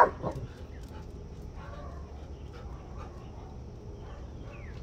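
Dogs at play: one loud bark right at the start, then faint whimpers and yips.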